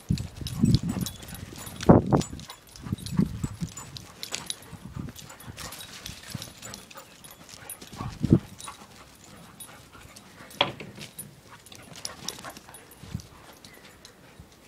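Black Labrador and springer spaniel puppies playing and running on grass: dog sounds among irregular thumps and scuffles, the loudest about 2 seconds and about 8 seconds in.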